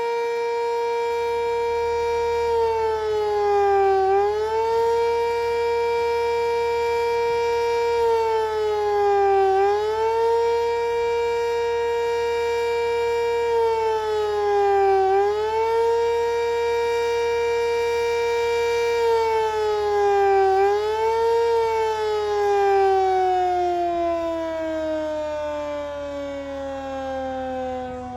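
Fire station's house siren sounding a call-out alarm. It holds a steady tone that dips briefly in pitch and recovers about every five and a half seconds, four times, then winds down in a long falling tone over the last several seconds.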